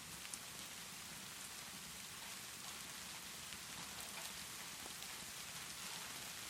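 Steady rainfall, an even hiss, with a few scattered small ticks and crackles, typical of a fireplace burning alongside the rain.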